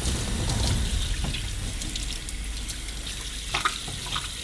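Water from a sink tap running over a large sturgeon head, rinsing it clean. A brief sharp knock sounds about three and a half seconds in.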